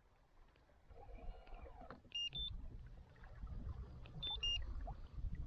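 Short electronic beeps, each a quick chirp of two or three high tones, sounding twice about two seconds apart, over a low rumble on the microphone.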